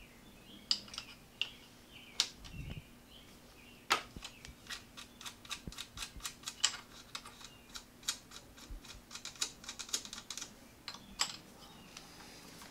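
Open-end wrenches clicking and ticking against the threaded clutch cable adjuster and its lock nuts on a Harley-Davidson Sportster as they are loosened: a run of quick, irregular light metallic clicks, thickest in the middle.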